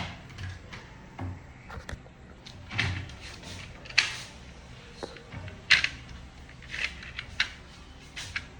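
Irregular sharp plastic clicks and knocks, about ten of them, some with a dull thump, as the washing machine's control panel and board are handled and refitted.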